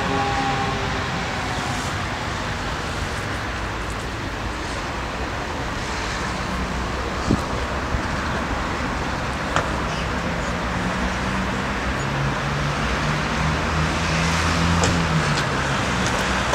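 Steady road traffic noise. About ten seconds in, a passing vehicle's low engine hum grows, and two small clicks sound midway.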